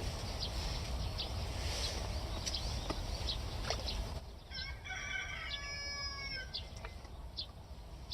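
A rooster crows once, about four seconds in: a single call of about two and a half seconds that falls in pitch at the end. Under it run a steady low rumble and scattered short ticks.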